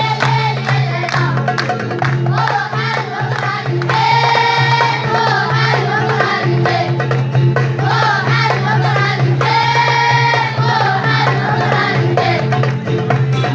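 A school vocal group sings an Amazigh folk song together in phrases, over drum percussion.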